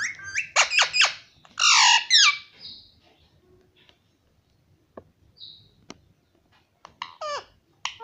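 A rose-ringed parakeet calls in a quick run of chirps and squawks for the first few seconds, one of them a long falling call. A quiet pause follows with two sharp taps, and the calling starts again near the end.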